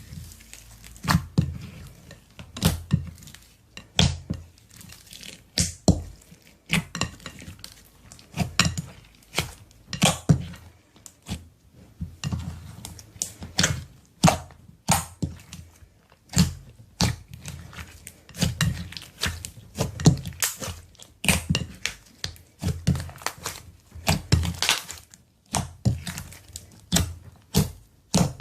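Slime being squished and pressed by hand, making sharp wet pops and crackles, one or two a second, each with a dull low thud.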